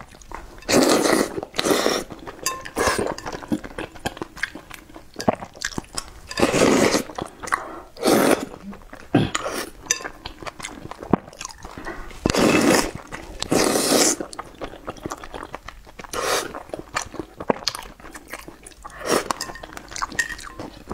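Noodles slurped loudly in about eight long sucking bursts, with wet chewing between them.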